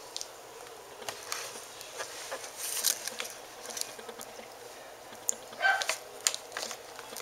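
Scottish terrier puppies squirming on a fleece blanket: soft rustling and small scratchy clicks, with a brief high squeak from a puppy about five and a half seconds in.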